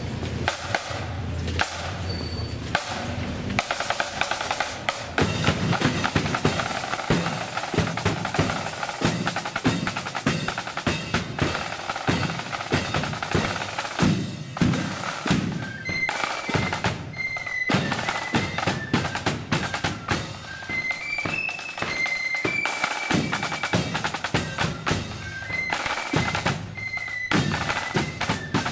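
Marching flute band's snare drums rolling and the bass drum beating with cymbals, a dense, loud drum corps. About halfway through, high flute notes start to sound above the drums.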